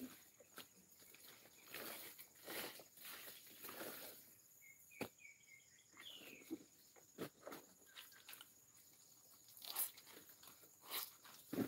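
Laundry being washed by hand in a plastic basin of water: irregular splashing, sloshing and rubbing of wet cloth, over a steady high insect drone.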